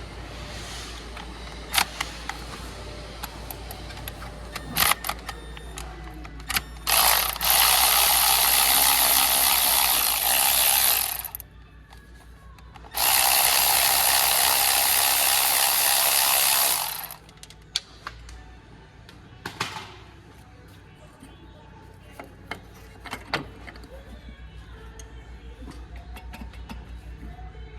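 A power ratchet run in two bursts of about four seconds each, undoing bolts, with sharp clinks of tools and metal parts between the bursts.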